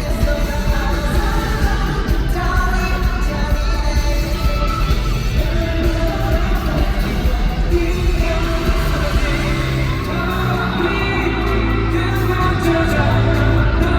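Live pop song performance: singing over a loud, amplified band track echoing in a large hall, with the low end filling out about ten seconds in.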